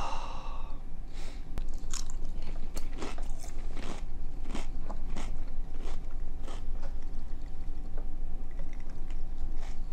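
A crunchy snack being bitten and chewed, a run of irregular crunches, over a steady low hum.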